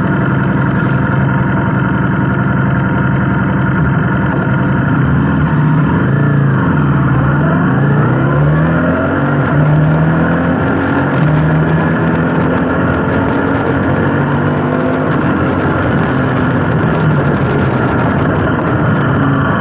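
An engine running steadily. Its pitch drops about six seconds in, then rises again a couple of seconds later as it slows and picks up speed.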